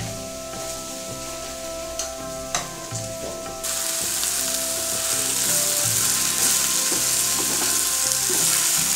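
Food frying in hot oil in a pan: a steady sizzle that suddenly gets louder a little before halfway, with two sharp taps about two seconds in. Soft background music with held notes plays underneath.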